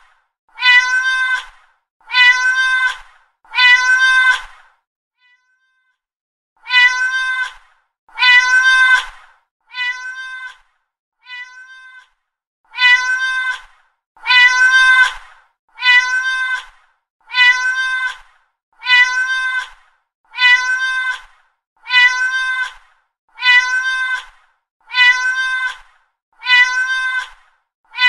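Domestic cat meowing: short, even meows repeating about every second and a half, with a pause about five seconds in and two fainter meows between about ten and twelve seconds in.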